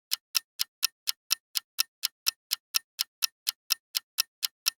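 Ticking clock sound effect counting down the answer time in a quiz, with sharp, evenly spaced ticks about four a second.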